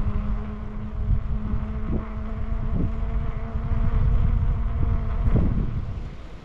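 Wind buffeting the microphone as a loud low rumble, with a steady low hum under it that stops about five and a half seconds in, and a few light knocks.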